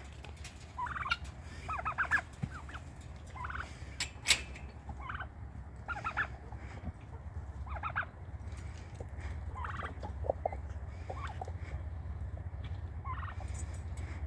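Domestic turkeys gobbling: short rattling calls repeated every second or two, with a few sharp clicks among them.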